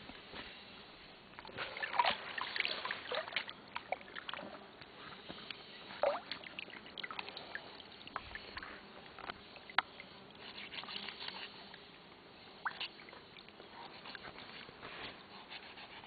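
Faint water sloshing and trickling, with irregular small splashes, drips and clicks that come in busier clusters.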